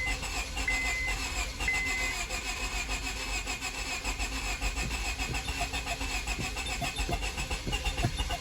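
A 2002 Honda Civic's four-cylinder engine being cranked over by its starter, turning steadily with starting fluid in the intake but not catching, after sitting unused for a month and a half. A high warning beep sounds three times about a second apart near the start, and a few uneven thumps come in the second half.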